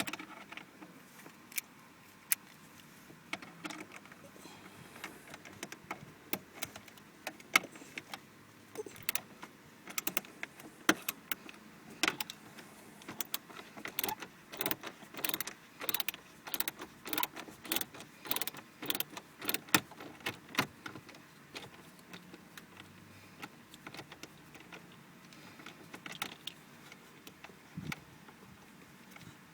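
Screwdriver backing screws out of the plastic dash trim: scattered sharp clicks that build into a quick run of clicks through the middle, then thin out.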